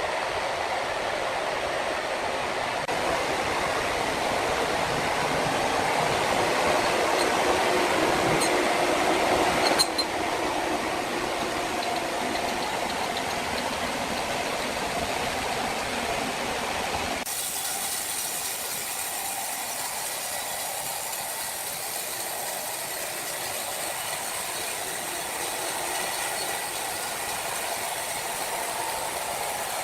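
Sawmill machinery running steadily as a saw works red oak logs, with a single sharp knock about ten seconds in. About seventeen seconds in the sound changes abruptly to a thinner, hissier noise.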